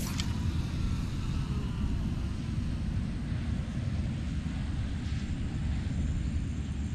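Steady low rumble of wind buffeting the microphone. Just at the start a short swish as the surf rod finishes the pendulum cast, followed by the faint whine of the conventional casting reel's spool paying out line, falling in pitch as the spool slows.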